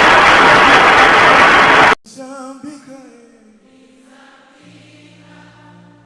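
A loud, steady hiss like static that cuts off suddenly about two seconds in, followed by soft worship singing with a wavering vibrato and then sustained low held notes.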